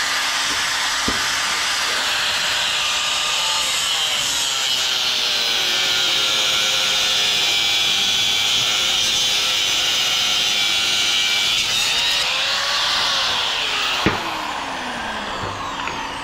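Electric angle grinder cutting into a scrap transformer's steel, running steadily under load with its motor pitch sagging as it bites. A sharp click comes about fourteen seconds in, after which the grinding gets quieter.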